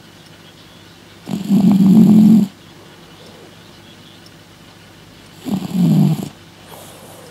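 Ginger cat snoring in its sleep: two low snores, each about a second long, about four seconds apart.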